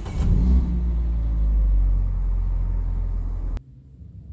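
Car engine just started: the revs settle from a brief flare into a steady low idle, which cuts off abruptly about three and a half seconds in.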